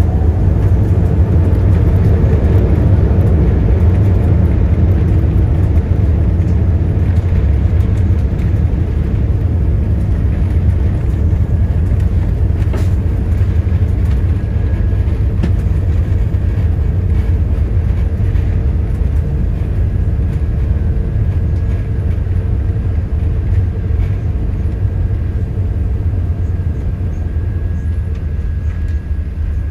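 Low, steady rumble inside the cabin of an Airbus A380 rolling on the ground after landing. It is loudest in the first few seconds and eases off gradually as the aircraft slows and taxis.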